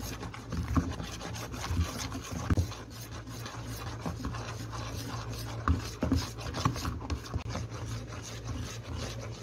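Whisk scraping and rubbing around a mixing bowl as flour is stirred into cake batter, with irregular short knocks against the bowl.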